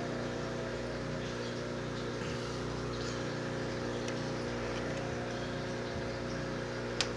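Steady machine hum made of several even tones, unchanging throughout, with one short click near the end.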